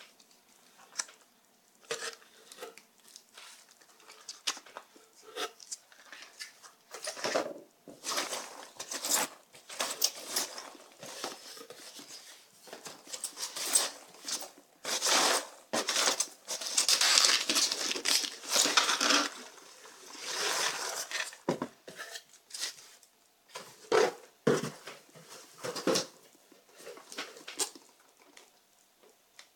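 Hands rummaging through polystyrene packing peanuts in a cardboard box: irregular rustling and clicking, densest in the middle, with a few sharper knocks near the end.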